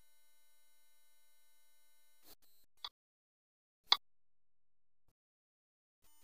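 A faint steady electronic whine made of several thin tones, which stops a little over two seconds in. Then come two short sharp clicks about a second apart, the second one louder.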